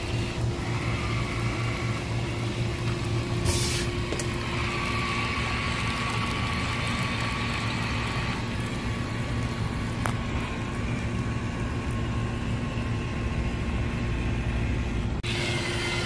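Small electric drive motors of a 4WD amphibious RC stunt car whining steadily as its wheels churn through pool water, over a constant low hum. A short hiss comes about three and a half seconds in.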